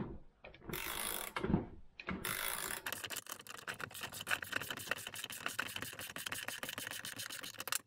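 Socket ratchet clicking as it backs a cylinder stud out of a Stihl MS-290 chainsaw crankcase, turned by two nuts jammed together on the stud. A short burst of ratcheting about a second in, then rapid, steady clicking from about two seconds in as the stud spins out easily.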